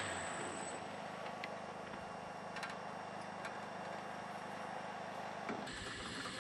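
Kite-line winch running as the red line pays out through its guides: a steady low mechanical hum with a few light clicks. The sound shifts about five and a half seconds in.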